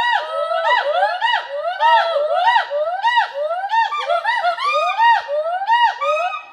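Hoolock gibbons calling: a rapid, continuous series of whooping notes that each rise and fall in pitch, about three a second, with more than one voice overlapping.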